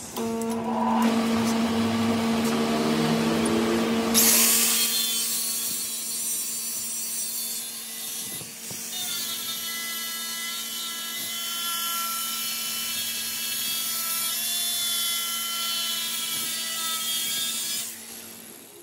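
Angle grinder with a flap disc grinding a steel shaft as it turns in a lathe, over a steady machine hum. The grinding bites in loudly about four seconds in, runs on with a high whine, and stops near the end.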